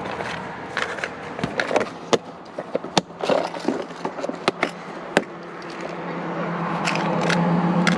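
Rummaging through fishing tackle and gear: small hard items clatter and knock irregularly. Toward the end, a steady engine hum grows louder.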